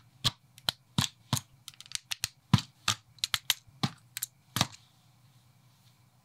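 Plastic building-block sections clicking and snapping together as the robot's head, arms and legs are pressed onto the torso: a quick, uneven run of about twenty sharp clicks that then stops.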